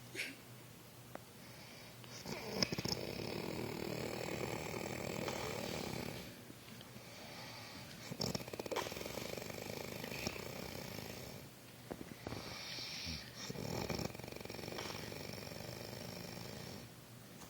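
Snoring in deep sleep: three long, rasping snoring breaths a few seconds apart, some starting with a short snort.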